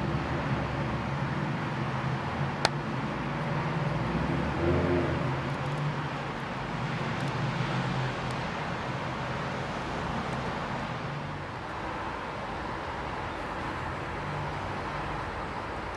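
Steady background traffic noise with a low engine hum from passing vehicles, and one sharp click about two and a half seconds in.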